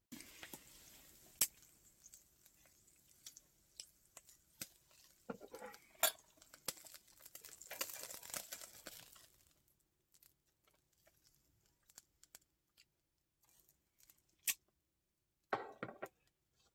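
Marbled beef sizzling and crackling on a hot wire-mesh grill, with sharp clicks of tongs against the wire. The sizzle is loudest just before it fades out about two-thirds of the way through, leaving only a few scattered clicks.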